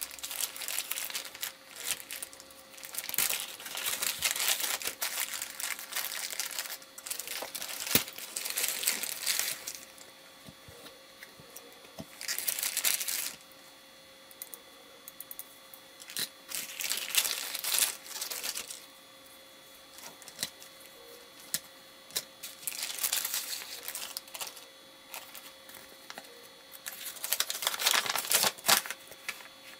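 Clear plastic parts bags crinkling as they are handled and opened, in spells of a few seconds with quiet gaps between; near the end a folded paper sheet rustles as it is opened out.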